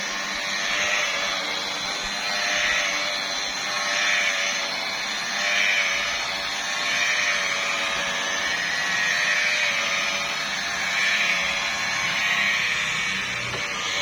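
Electric car polisher running on the hood's paint, a steady motor whine that swells and eases about every one and a half seconds as the pad is worked back and forth.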